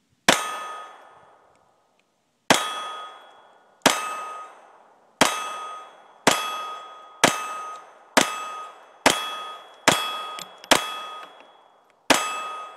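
Eleven single shots from a 1911 pistol with a .22 LR conversion kit, at an uneven pace that quickens to about one a second. Each shot is followed by a ringing metallic clang from a steel target, fading over about a second.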